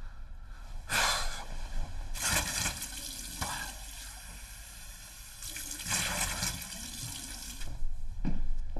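Rustling of bedding and clothing in several noisy surges as a person tosses in bed and gets up, with a soft thump near the end.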